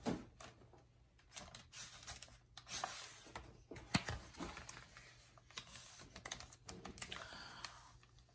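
Paper pages of a picture book being flipped by hand: a faint, irregular run of light flaps, ticks and rustles as several pages turn, then the hand settling on the open page.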